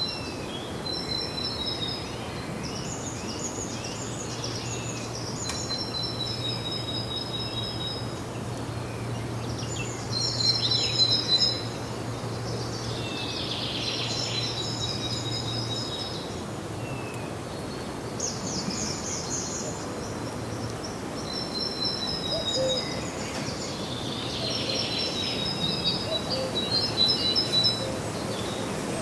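Songbirds singing: short high trilled and whistled phrases repeating every few seconds over a steady background hiss.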